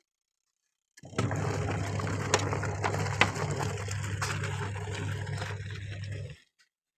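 Washing machine running: water rushing and splashing over a steady low motor hum, with a few sharp clicks. It starts suddenly about a second in and cuts off abruptly near the end.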